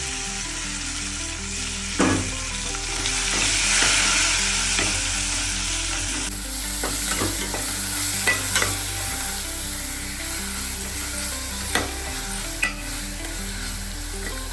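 Ajwain and coriander leaves sizzling in a pan of hot tempering oil while being stirred. The sizzle swells a few seconds in and drops away suddenly about six seconds in. The spoon knocks sharply on the pan about two seconds in and clicks against it a few more times later.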